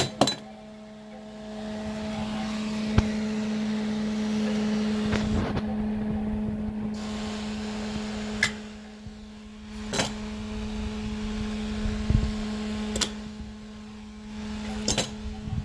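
Low, steady electrical hum from a homemade microwave-transformer electromagnet rig and its cooling fan. Sharp clicks and metal clanks come every few seconds as the switch is flipped and steel tools snap onto the magnet or drop off it.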